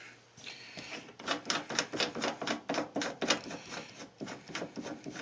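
Plastic leg being unscrewed from the base of a Haier HLP23E portable washing machine, giving a quick irregular run of clicks, several a second, that thins out near the end.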